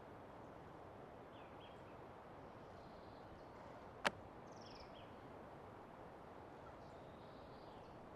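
Faint, steady forest ambience with a few small, faint bird chirps, and one sharp click about four seconds in.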